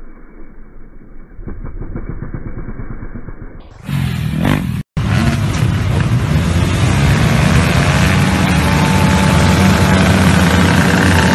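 A dirt bike engine running on a motocross track, thin and muffled. After a sudden cut, a row of motocross bikes is held revved at the starting gate, a loud, steady mass of engines that slowly grows louder.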